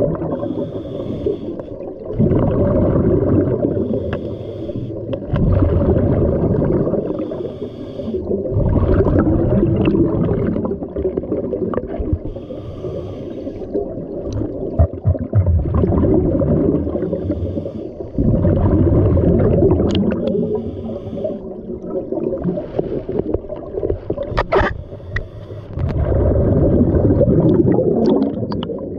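Scuba diver breathing through a regulator underwater: exhaled bubbles rumble and gurgle in bursts of two to three seconds, with quieter hissing inhalations between them, repeating every few seconds.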